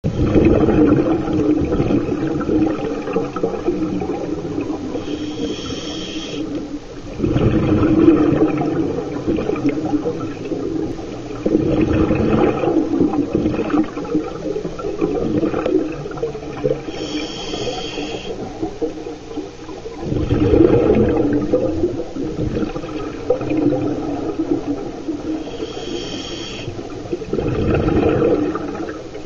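Scuba regulator breathing underwater: a brief hissing inhale, then a loud rush of exhaled bubbles, repeating about every eight or nine seconds over a steady underwater rumble.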